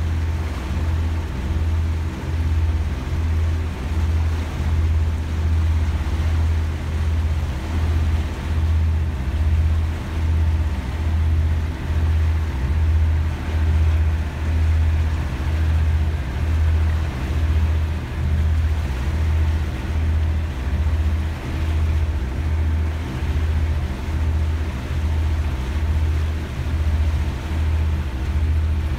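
Boat engine running with a steady low drone that pulses a little more than once a second, over a hiss of water and wind.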